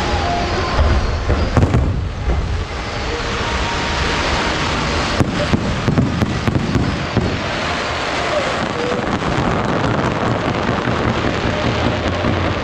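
Aerial firework shells bursting: deep booms a second or two in, then a quick run of sharp crackles a few seconds later, over a continuous rumbling wash of further bursts.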